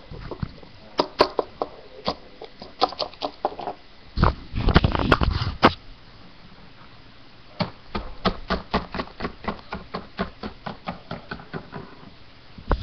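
Light clicks and taps of objects being handled against a hard surface, with a louder cluster of knocks and rustling about four to six seconds in, then a run of quick light taps, about four a second, near the end.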